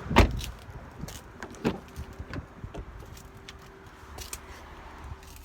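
Handling noises inside a car's cabin: a loud knock at the start, then scattered clicks and light rattles, with a faint steady electric hum for about two seconds in the middle.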